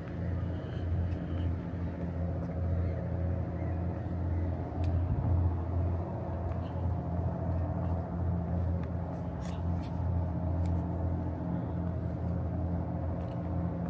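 Steady low mechanical rumble with a constant hum, plus scattered faint ticks.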